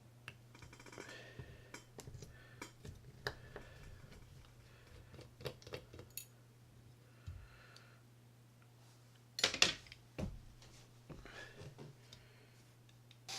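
Light clicks and ticks of a small screwdriver and small metal parts as a screw is worked out of a Shimano Citica 200D baitcasting reel's body, with a louder, sharper clink about two-thirds of the way through.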